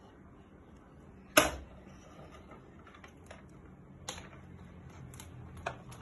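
A few separate sharp clicks or knocks. The loudest comes about a second and a half in, and fainter ones are scattered through the rest.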